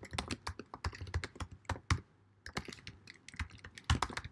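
Typing on a computer keyboard: a quick run of keystrokes, with a short pause about halfway through.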